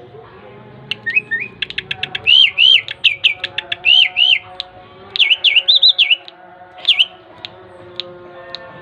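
Young Asian pied starling (jalak suren) singing: a run of quick clicks and arched whistled notes that starts about a second in, with a second burst of rapid whistles about five seconds in and a last note near seven seconds.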